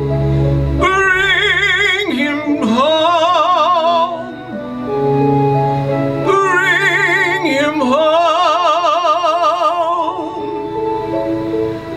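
Solo singing in an operatic style, with strong vibrato on long held notes, over an instrumental accompaniment. The voice sings two phrases with a short breath between them about four seconds in.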